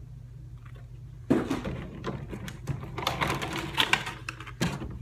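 Action figure packaging being handled and opened, a dense run of crinkles, clicks and scrapes starting about a second in, over a steady low hum.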